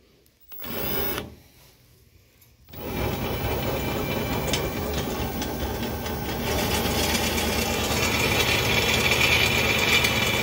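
A power drill starts about three seconds in and runs steadily, turning the rod that sets the angle of the foam cutter's hot wire. It grows a little louder after about six seconds.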